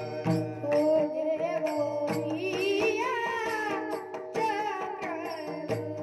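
Marathi Varkari devotional song (bhajan) with held drone notes and regular percussion strokes; a voice sings a wavering, ornamented line through the middle.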